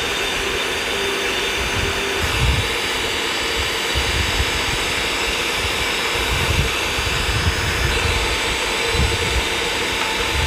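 Electric stand mixer's motor running steadily as its twin beaters whip egg whites in a stainless steel bowl.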